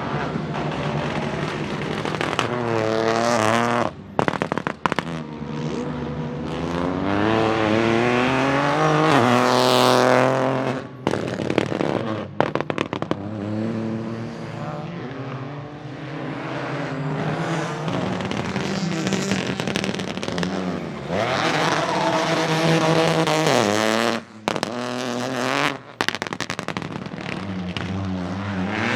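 Peugeot 208 Rally4's 1.2-litre turbocharged three-cylinder engine driven hard, its revs climbing in long pulls and dropping back at each change. Several times the sound cuts out sharply on lift-off in a spatter of crackles and pops: about four seconds in, around eleven to thirteen seconds, and again near twenty-four to twenty-six seconds.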